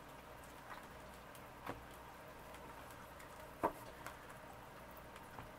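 Quiet room tone with three or four faint light taps, the clearest about three and a half seconds in, from tarot and oracle cards being handled on a cloth-covered table.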